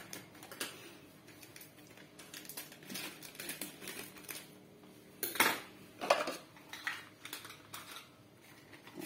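A metal spoon clinking and knocking against a drinking glass and a plastic jar as ingredients are spooned out, in scattered light clicks with two louder knocks about five and six seconds in.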